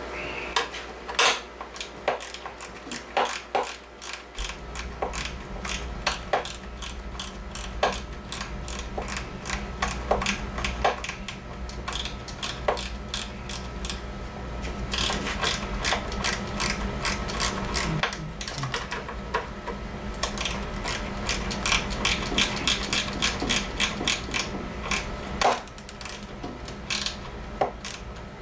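Torque-wrench ratchet clicking in quick runs as the cylinder head bolts of a 1988 Evinrude 55 hp commercial outboard are tightened down on a new head gasket.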